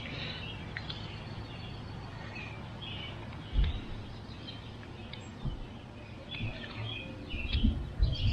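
Birds chirping in the background over faint outdoor ambience, with a few dull low thumps, the loudest about three and a half seconds in and a cluster near the end.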